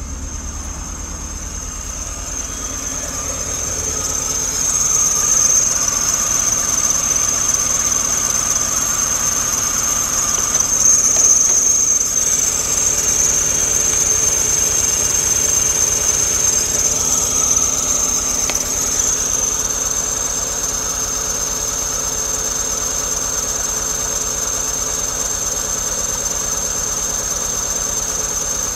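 Fiat Brava's 1.6 petrol four-cylinder engine (182A4000) idling steadily, with a constant high-pitched whine over the engine note. It gets louder about four to five seconds in, then holds even.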